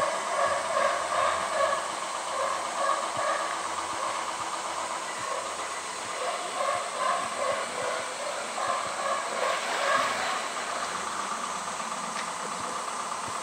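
A steady hiss of moving water, with indistinct voices in the background.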